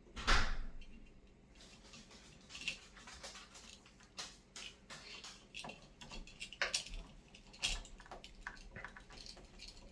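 Scattered small clicks and knocks of a light switch and its wires being handled while the wires are pushed into the new switch's terminals, with the loudest knock about a third of a second in.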